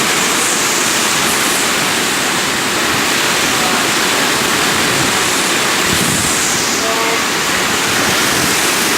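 Hurricane wind and heavy rain: a loud, steady rush that does not let up.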